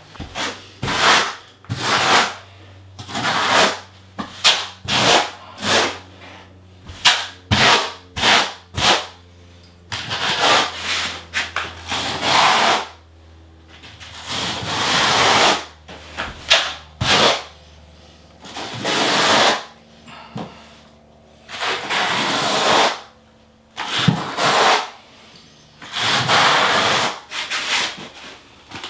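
Steel notched trowel scraping and combing thinset mortar onto a shower wall, in short quick strokes at first and then longer sweeping strokes with pauses between.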